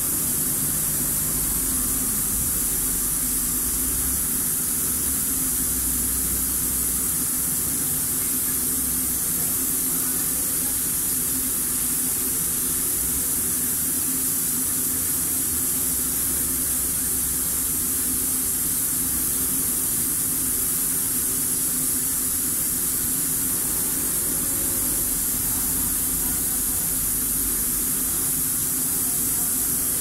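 Steady hiss over a low steady hum, with no bird calls standing out.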